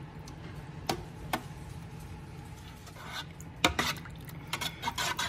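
Metal spoon stirring a soupy mixture of rice filling, tomato sauce, water and olive oil in a pan, with a low scraping and sloshing. The spoon clicks against the pan about a second in and several times near the end.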